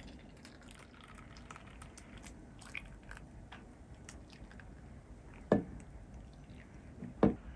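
Coffee poured in a thin stream from a glass jar into a silicone ice cube tray, with faint dripping and the crackle of foam in the cells. Later come two dull knocks, the second as the glass jar is handled.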